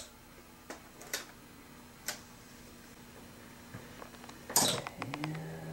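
Handling noise from bicycle handlebar parts being fitted into a hard plastic suitcase: a few light clicks and taps, then a louder scrape about four and a half seconds in.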